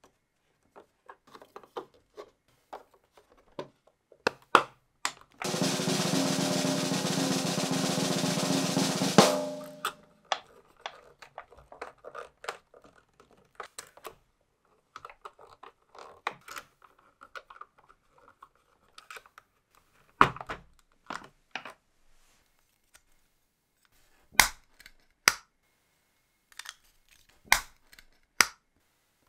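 Small plastic parts of a scale model engine kit clicking and tapping as they are handled and screwed together. About five seconds in, a loud rattling buzz runs for about four seconds and cuts off with a sharp knock.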